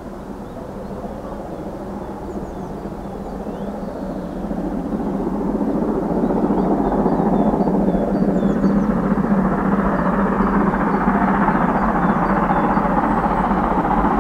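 Steam locomotive hauling a train, approaching and growing louder over the first six seconds, then running past steadily at full level.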